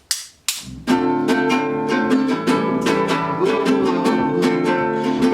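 A couple of sharp hits, then a rock band's instrumental intro starts about a second in: guitar chords over a steady beat with cymbals.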